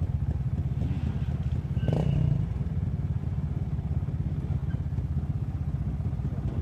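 Trials motorcycle engine running at low revs with an even, steady beat, and one short louder burst with a clank about two seconds in.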